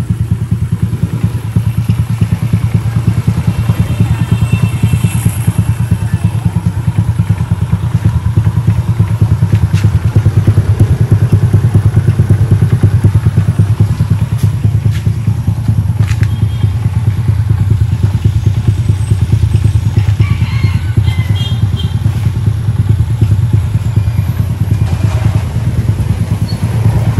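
Honda Wave S 110 square-head single-cylinder four-stroke engine, built up with a 54 kit, idling steadily with an even exhaust beat. The idle is smooth and settled, the sign of a freshly rebuilt engine running well.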